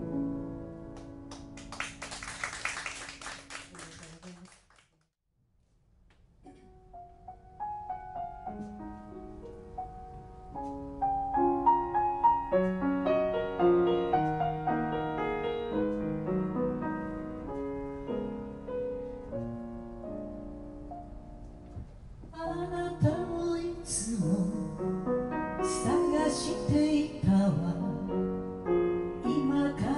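Brief applause over a fading piano chord, then a short pause and a solo grand piano introduction that builds in loudness. A woman starts singing with the piano about three quarters of the way through.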